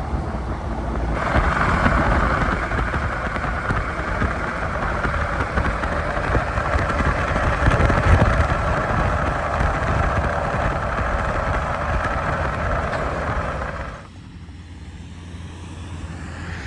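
Steady rushing wind noise over a low rumble, dropping away suddenly about fourteen seconds in.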